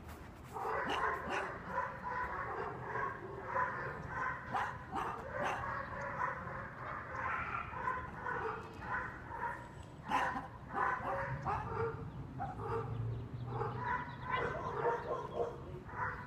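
German Shepherd puppy barking and yipping again and again, short high calls coming in quick runs with brief pauses between them.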